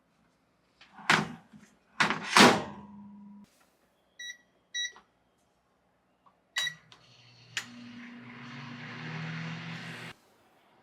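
Microwave oven door thudding shut, two short keypad beeps, then a click and a beep as it starts. It runs with a steady hum and fan hiss for about two seconds and stops suddenly near the end.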